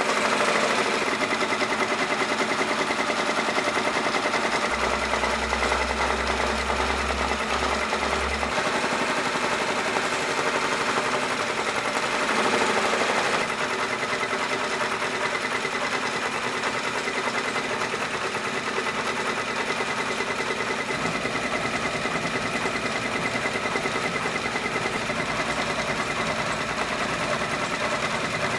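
Brother PR620 six-needle embroidery machine stitching steadily at full speed: a fast, even chatter of needle strokes as it sews out a monogram.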